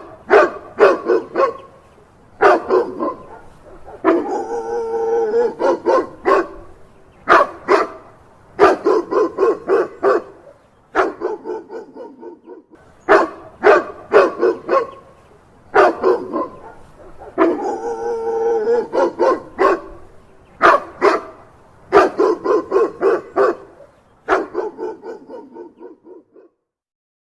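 A dog barking in quick bouts of several sharp barks, with a longer drawn-out call twice. The sequence repeats about halfway through and stops shortly before the end.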